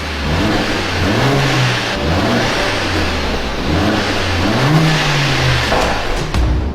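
Mercedes-AMG A45 S turbocharged 2.0-litre four-cylinder engine revving up and falling back several times, each rev a rise and drop in pitch.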